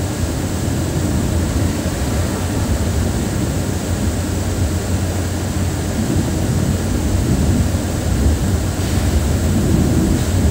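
KSRTC Airavat Club Class bus on the move: a steady low rumble of engine and road noise.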